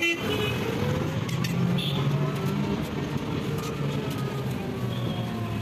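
Motor vehicle running on the road, a steady engine hum with road noise and a few faint rising and falling tones.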